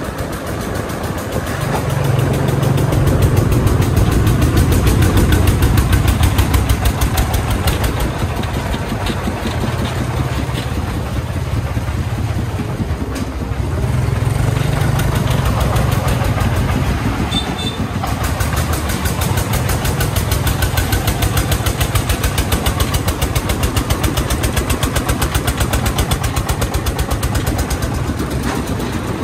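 Công nông truck's single-cylinder diesel engine running with a fast, even beat. It gets louder about two seconds in, then swells and eases in level as it works.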